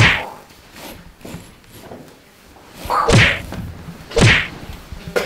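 Whoosh sound effects of the kind edited onto a mock fight: three quick swishes, each falling in pitch, one at the start and two about a second apart a little past the middle.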